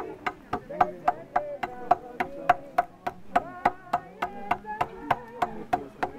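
Group of mourners singing a hymn with steady rhythmic hand clapping, about three to four claps a second.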